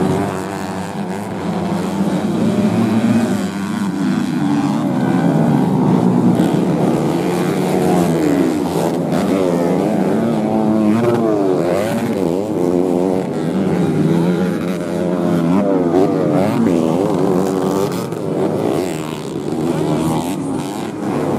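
Engines of several modified underbone racing motorcycles revving hard as they race, their overlapping pitches rising and falling with each gear change and throttle-off.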